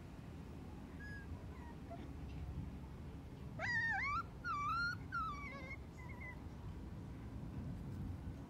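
Puppy whining and yelping in three high, wavering cries about three and a half seconds in, with a few faint squeaks before them, while being mouthed in rough play by another puppy.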